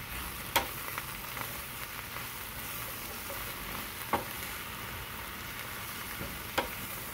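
Sliced baby bella mushrooms and onions sizzling in butter in a skillet as a wooden spatula stirs them, with a steady frying hiss. The spatula clacks against the pan three times.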